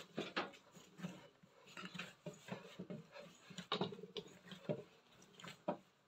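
Faint, irregular squishes and pats of soft, sticky bread dough being pressed and folded by hand on a wooden tabletop, several in each second.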